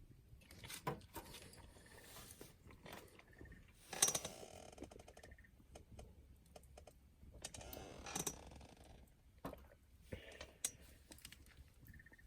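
Irregular clicks, clatter and rustling of small objects being handled, loudest about four seconds in and again around eight seconds. A short chirp repeats faintly now and then.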